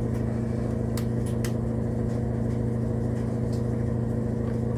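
Steady electrical hum from a powered HO model train layout, with a couple of light clicks about a second in, while the locomotive sits under power and has not yet started to move.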